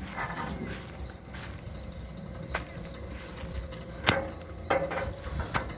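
Insects buzzing steadily over a low rumble, with a few sharp clicks, the loudest about four seconds in.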